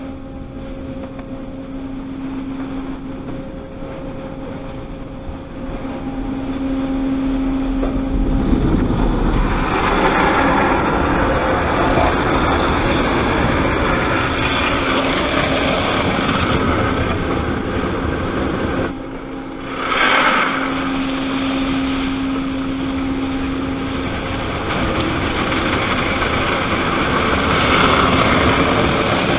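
Automatic car wash heard from inside the car. A steady hum comes first, then about eight seconds in the water jets and brushes start pounding the windshield and body in a loud, dense rush. The rush breaks off briefly about two-thirds through and comes back with a sudden surge.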